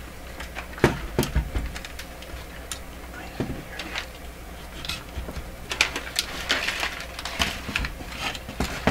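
Irregular clicks, taps and light knocks of hands handling an opened-up Nordmende Globetraveler III transistor radio and turning its tuning knob, over a low steady hum.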